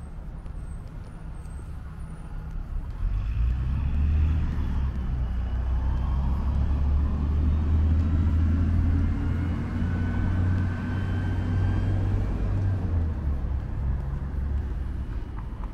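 Road traffic: a motor vehicle's low engine rumble swells about three seconds in, holds for about ten seconds with a faint whine over it, then eases off near the end.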